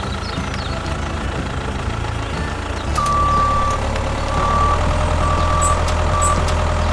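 A vehicle motor runs with a steady low hum. About three seconds in, a high electronic beep joins it, sounding four times in uneven lengths, the first beep the longest.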